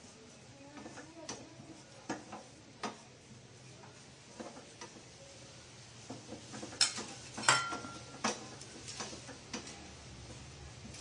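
Wooden spatula stirring and scraping ground peanuts dry-roasting in a small stainless steel saucepan, with irregular taps of the spatula against the pan. About seven seconds in come two louder knocks, the second leaving a short metallic ring from the steel pan.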